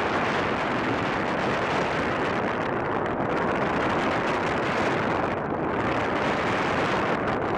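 Steady rush of wind over the microphone of a camera on a bicycle descending at speed, easing briefly about five and a half seconds in.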